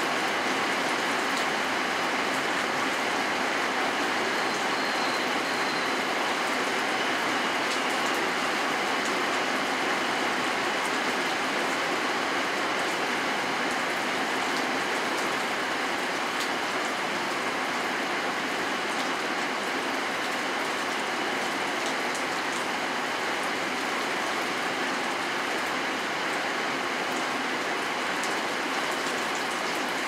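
Steady rain falling: an even, constant hiss with faint, scattered drop ticks.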